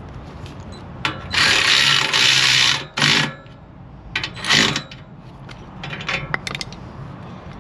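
Socket ratchet clicking in three spurts, the longest about a second and a half, as a nut on a motorcycle exhaust mount is run down. Light metal ticks and clinks sound between the spurts.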